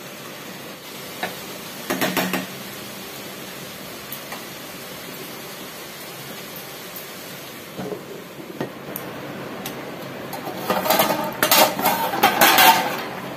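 Cookware clattering: a spatula knocks against a kadai a few times about two seconds in, then near the end an aluminium pot and its lid clank and clatter for a couple of seconds as the lid is handled.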